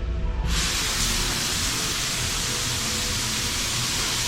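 Overhead warm-rain shower in a spa shower room switching on about half a second in, then a steady hiss of falling water spray.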